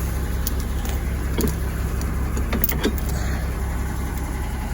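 Truck engine idling steadily, with a few short clicks and knocks over it.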